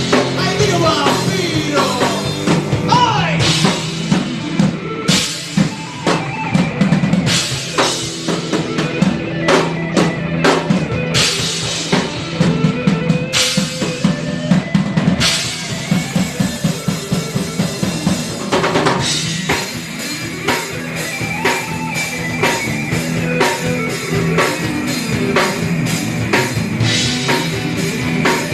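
Rock music with the drum kit to the fore: a busy run of rapid snare and bass-drum hits over sustained instrument tones.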